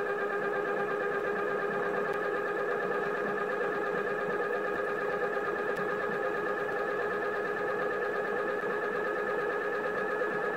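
Electric motor/generator and heavy steel flywheel spinning at a constant speed: a steady machine whine made of several held tones with a slight waver.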